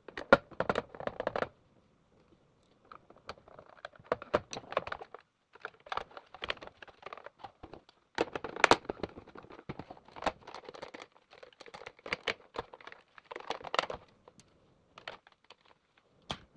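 Quick, irregular clicks, taps and rattles of the Roomba i3's plastic housing and parts being handled and fitted together by hand, coming in clusters with short silent gaps.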